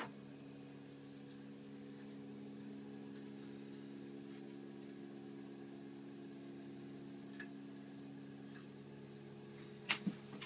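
Legacy Arty CNC router running with a faint, steady motor hum; two sharp clicks near the end.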